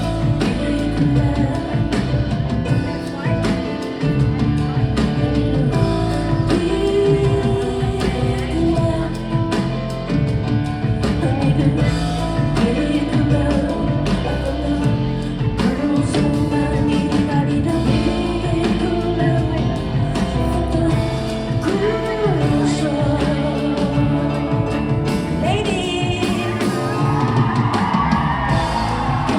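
Live concert music: a woman singing over keyboards, bass and drums.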